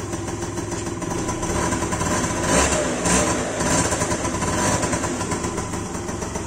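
PGO moped scooter's small engine running on a newly fitted spark plug, just after a kick start. It gets louder twice around the middle, as if revved briefly, then settles back to idle.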